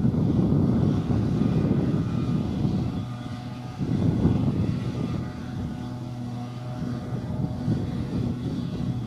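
Heavy farm machinery engines running with a steady drone. A rumbling noise swells and fades, and a steady engine hum comes through from about halfway in.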